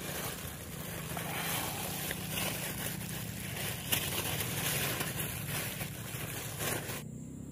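Thin plastic bag rustling and crinkling as it is handled close to the microphone. The rustling stops abruptly near the end.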